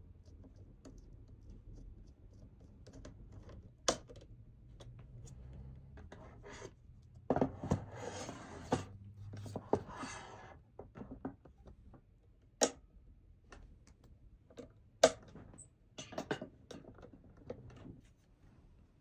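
Handling noises from assembling a small-form-factor PC: scattered sharp clicks and knocks of metal and plastic parts, with a few seconds of rubbing and scraping in the middle as a case fan is handled.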